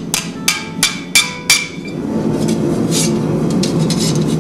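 Ball-peen hammer striking a curved steel armour plate held over a stake, five quick ringing metallic strikes about three a second, shaping the plate for a helmet. After about two seconds the strikes stop and acoustic guitar music comes up.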